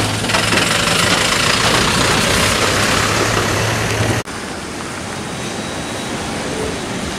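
Eicher truck's diesel engine running with a steady low hum as it passes over a wet, broken road, under a broad hiss of tyres and water. A little over four seconds in the sound cuts off abruptly to quieter road noise.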